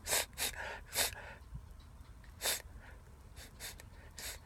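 A man sniffing and breathing sharply through his nose in short, quiet bursts, about seven in all, at the tail end of a sneezing fit.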